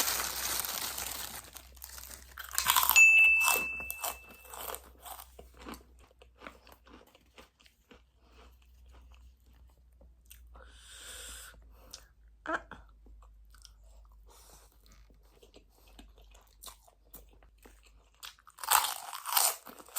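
Someone biting and chewing kerupuk (Indonesian crackers) with crisp crunches. There is a loud crunch about three seconds in and another near the end, with quieter chewing clicks between them. At the start there is a plastic-like crinkling.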